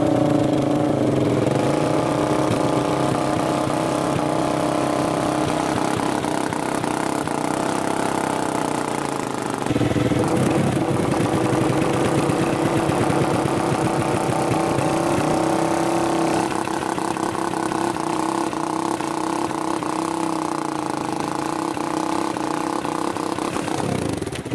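Quad (ATV) engine running steadily throughout, its note stepping up about ten seconds in and changing again around sixteen seconds. The quad is mired in deep mud.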